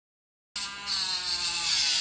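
Die grinder with a thin abrasive cut-off disc, cutting aluminium J-channel stiffener: a high, steady whine that starts suddenly about half a second in and sags slightly in pitch as the disc bites into the metal.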